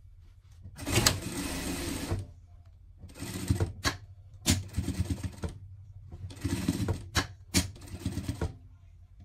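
Industrial straight-stitch sewing machine stitching in about five short runs, stopping and starting as the fabric is guided, with a few sharp clicks between runs and a steady low motor hum underneath.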